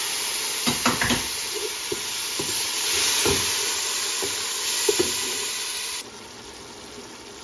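Loud sizzling and hissing from a splash of water hitting hot oil and ginger-garlic-tomato spice paste in a pot, added so the masala doesn't burn. A wooden spoon stirs and knocks against the pot several times. The sizzle stops abruptly about six seconds in.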